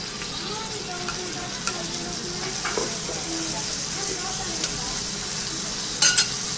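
Food sizzling steadily on a hot teppanyaki iron griddle under a melting pat of butter, with a short loud metallic clatter about six seconds in.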